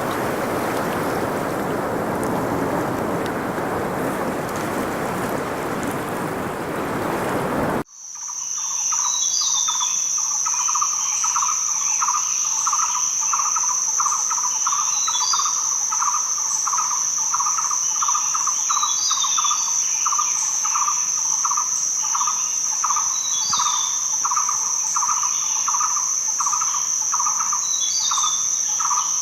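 Steady rushing noise of ocean surf cuts off abruptly about eight seconds in. It gives way to a steady high-pitched insect trill, a fast pulsed cricket-like chirping, and a short falling bird call that repeats every few seconds.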